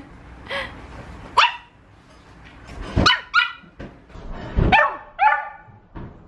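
Small white puppy barking: a series of short, high-pitched yaps, some coming in quick pairs.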